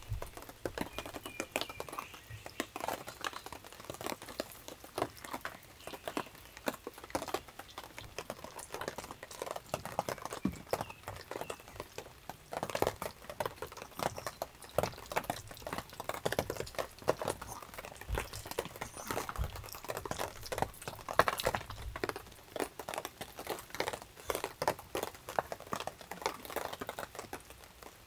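Two Pomeranians eating from stainless-steel bowls: a busy, irregular run of small crunches and clicks as they chew and their muzzles knock against the metal bowls.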